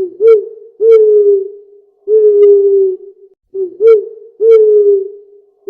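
Owl hooting: two short hoots followed by two longer, slightly falling hoots, the phrase given twice.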